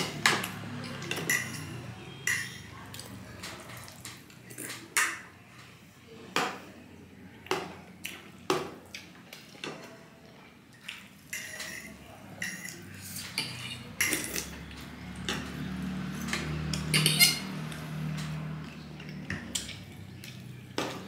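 Metal spoons and forks clinking and scraping against a ceramic plate and bowl, in many short, irregular clicks. A low hum comes in for a few seconds past the middle.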